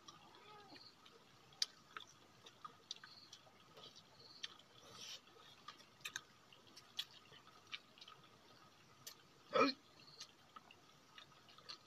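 Quiet eating sounds: scattered soft clicks and smacks as grilled fish is picked apart by hand and chewed, with one louder short smack near ten seconds in.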